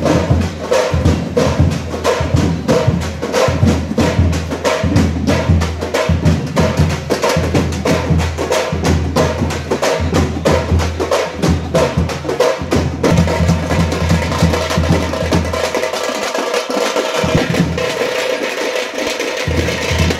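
Reggaeton-style background music with a steady percussive beat over a heavy bass line; the bass drops out briefly about three quarters of the way through.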